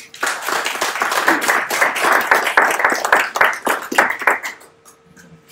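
A small audience clapping. The applause starts abruptly and dies away after about four and a half seconds.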